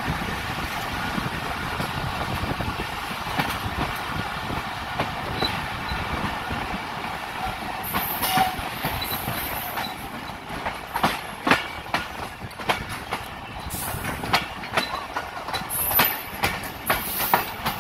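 Moving passenger train heard from an open coach doorway: steady rumble and rattle of the coaches, with irregular clacks of the wheels over rail joints that grow sharper and more frequent from about ten seconds in.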